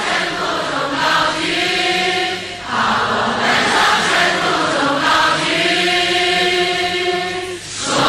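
A large congregation singing a slow Chinese worship hymn, in long held phrases with a brief break between them about two and a half seconds in and again near the end.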